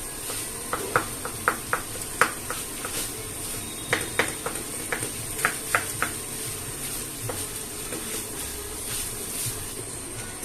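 A spoon stirring a potato and yellow-pea mixture in a pan, clinking sharply against the pan at irregular intervals over a steady hiss.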